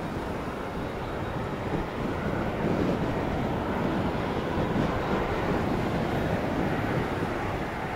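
ATR 42-500 turboprop approaching to land, its engines and propellers a steady, noisy drone that grows a little louder about two seconds in, mixed with wind on the microphone.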